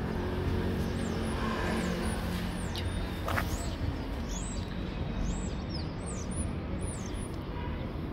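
Steady low rumble of traffic, with many short, high bird chirps that fall in pitch from about a second and a half in until near the end.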